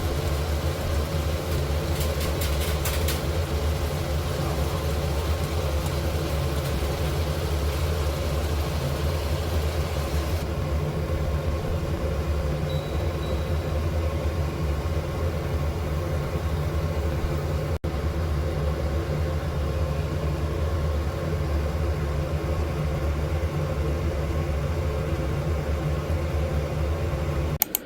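Car cabin noise while driving: the engine and road make a steady low rumble.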